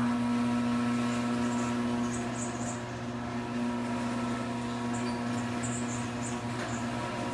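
Chamberlain CG40D chain-drive garage door opener running as it opens the door: a steady motor and chain-drive hum with several fixed tones, with high squeaks now and then.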